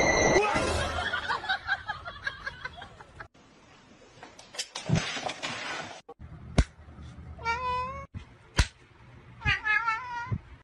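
Domestic cats meowing: two drawn-out, wavering meows in the second half, each preceded by a sharp knock.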